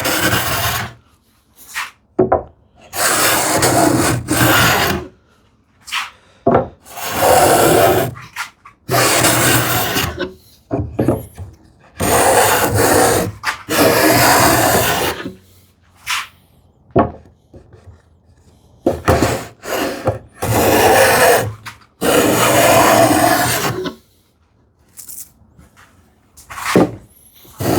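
Handmade wooden rabbet (rebate) plane cutting a rebate in ash: a series of rasping push strokes, each a second or two long, with short pauses between them.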